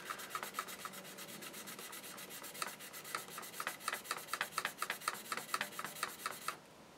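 Sanding stick rubbed in quick back-and-forth strokes against the edge of a plastic model car body shell, several strokes a second, stopping shortly before the end. The edge is being knocked back to leave a smooth, flush join line.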